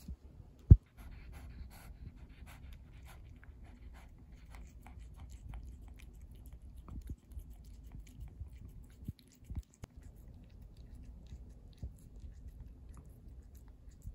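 A cat licking wet food in gravy from a person's cupped palm: a run of quick, wet lapping clicks, a few a second, thinning out later on. A single sharp thump comes just before the licking starts.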